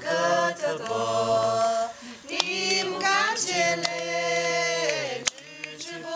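A group of voices, mostly women's, singing a Yi toasting song that welcomes guests, in long held notes, with a few hand claps.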